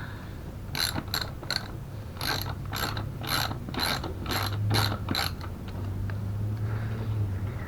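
Hand ratchet wrench clicking through about a dozen quick strokes in short runs, stopping about five seconds in, with a steady low hum underneath.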